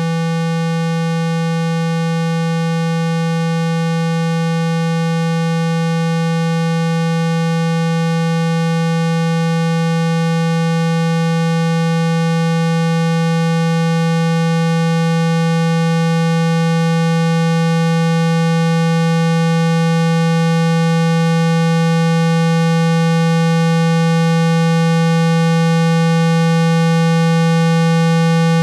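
Steady 165 Hz tone, a low continuous hum with faint higher overtones, slowly growing louder. It is a speaker-cleaning tone meant to shake dust and water out of a phone's speaker.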